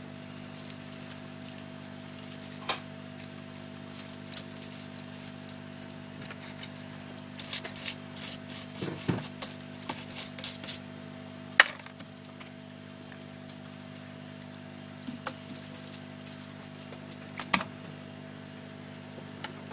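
Scattered clicks and small clattering knocks of objects being handled, with a busier run of quick clicks and rattles in the middle and two sharp clicks later on, over a steady low hum.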